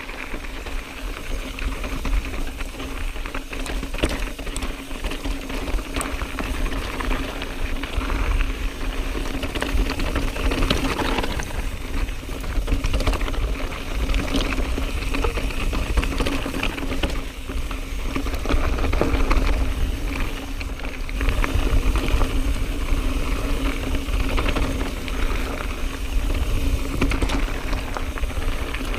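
A YT Jeffsy mountain bike being ridden fast over dirt and rock, heard through an action camera's microphone: tyres crunching and the bike's chain and frame clattering over bumps, under a steady rumble of wind on the microphone.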